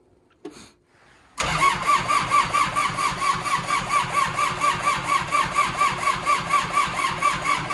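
Kubota L4310 tractor's four-cylinder diesel engine cranked by its electric starter in the cold, straight after the glow plugs were heated. It starts turning over suddenly about a second and a half in, with an even rhythmic beat of about six compressions a second, and does not catch.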